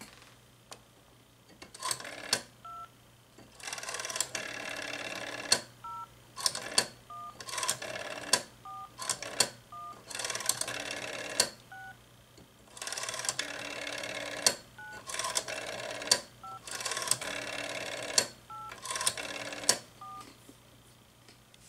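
Bell System 500 rotary telephone being dialled: the rotary dial whirs and clicks as it runs back, and after each digit a short two-tone touch-tone beep comes from the handset earpiece as the DialGizmo pulse-to-tone converter turns the dial pulses into tones. There are about ten such beeps.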